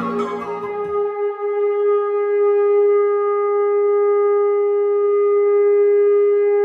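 The intro music dies away about a second in. It leaves a single horn-like note held at one steady pitch.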